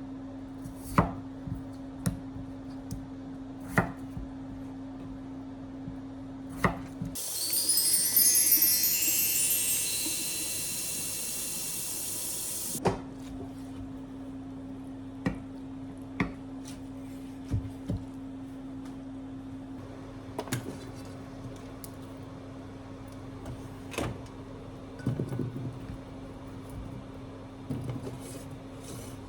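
Kitchen work sounds: scattered sharp clinks and knocks of utensils and dishes over a steady low hum. About seven seconds in, a bright chime-like ringing of many high tones starts loud and fades over about five seconds.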